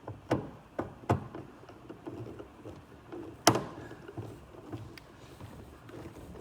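Hard plastic interior trim panel being handled and fitted into place: scattered clicks and knocks, the loudest a single sharp knock about three and a half seconds in.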